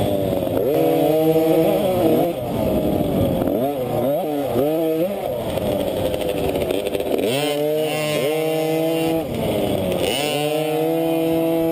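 KTM 50 two-stroke minibike engine revving under throttle, the pitch climbing, holding for a second or so, then dropping off, several times over.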